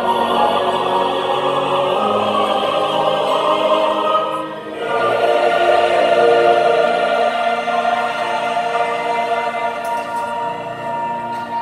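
Church choir singing a hymn in full harmony with violins accompanying. The music breaks off briefly about four and a half seconds in, then the choir holds a long sustained chord.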